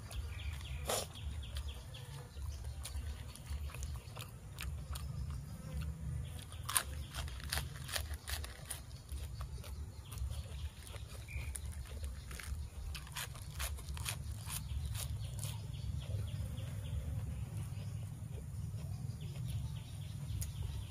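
Close-up chewing of crisp raw greens, mouth full, with wet smacks and crunching clicks scattered irregularly through it over a steady low rumble.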